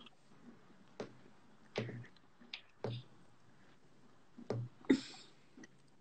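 Short, quiet bursts of stifled laughter and breathy vocal sounds, the loudest about five seconds in, with a few small clicks between them.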